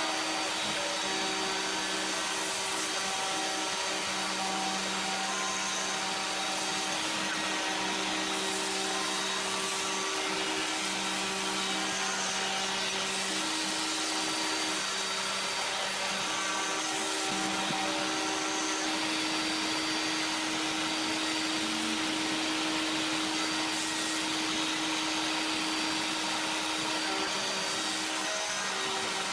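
A vacuum cleaner runs steadily through a hand-held hose nozzle held beside the bit, together with the steady whine of a CNC router spindle at about 9900 rpm milling a white sheet. The spindle tones come and go as the cut moves along.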